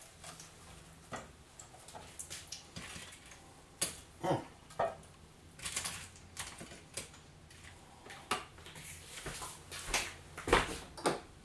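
Irregular light clinks and knocks of kitchen utensils and dishes being handled, some of them louder taps.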